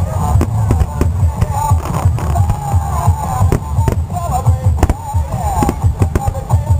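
A fireworks display firing many shells in rapid succession, a dense run of booms and crackles with a continuous low rumble, with music playing.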